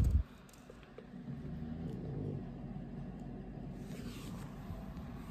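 A phone being handled and moved: a low thump right at the start, then a faint low rumble and rustle.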